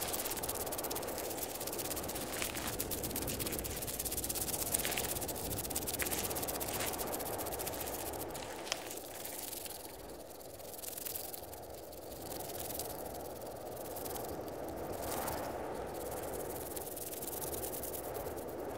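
Synthetic sci-fi ambience: a steady hissing, rustling noise with a few faint clicks, dipping a little in level around the middle.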